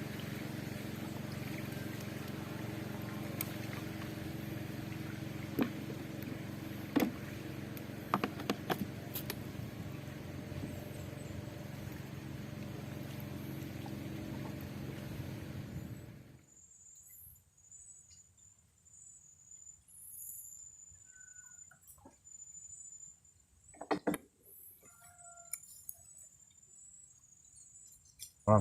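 Small boat engine running steadily, then cut off abruptly about 16 seconds in. Afterwards faint high chirping and a few sharp clicks.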